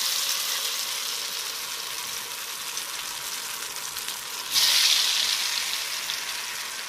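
Batter-coated sukhiyan balls deep-frying in hot sunflower oil: a steady, high sizzling hiss that eases slowly, then surges louder about four and a half seconds in and fades again.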